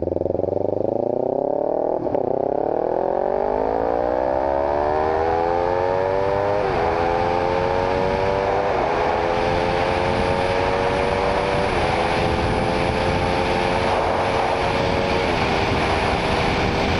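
Kawasaki Ninja 300 parallel-twin engine heard from on board, accelerating and shifting up through the gears. The pitch climbs, then drops sharply at each upshift, five times, under steady wind and road noise.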